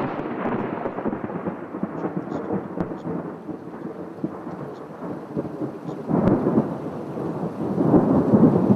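Thunderstorm ambience: steady rain with rolling thunder, swelling louder about six seconds in and again near the end.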